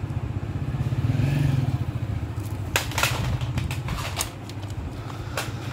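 Plastic cassette cases clicking and clattering as they are handled and shuffled, a few sharp clicks from about halfway in, over a steady low mechanical rumble.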